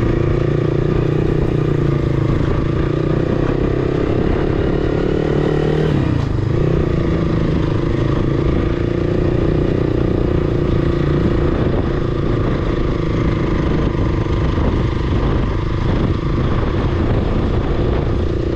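Motorcycle engine running steadily under way, heard from the bike itself. The engine note drops briefly about six seconds in, then picks up again.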